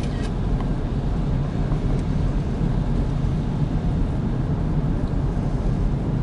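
Steady low rumble of a car driving, engine and tyres on the road, with no change in speed.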